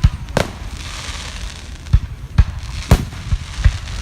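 Aerial fireworks shells bursting: a string of loud booms, about seven in four seconds, with a crackling fizz trailing the bursts in the first half.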